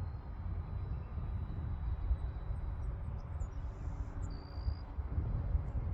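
Outdoor ambience: a steady low rumble, like light wind on the microphone, with a faint hum and a few faint high chirps.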